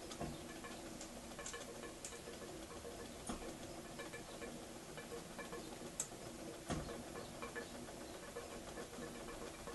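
Märklin 4097 model steam engine unit running on steam from a small homemade boiler, with a steady, fast ticking and a couple of sharper clicks a little past the middle.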